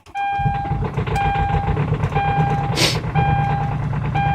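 A diesel car's starter cranking the engine over hard in −30 °C cold, a cold-soaked hard start. Over it a dashboard warning chime beeps about once a second, and a brief hiss comes about midway.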